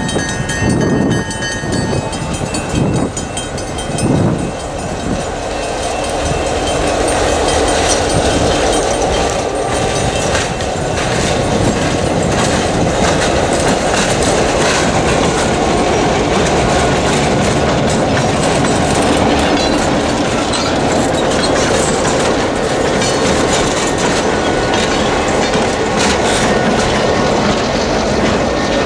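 EMD GP9 diesel locomotive leading a freight train past at close range. Spaced knocks of the wheels over the rail in the first few seconds give way, from about six seconds in, to a steady loud rumble of engine and wheels.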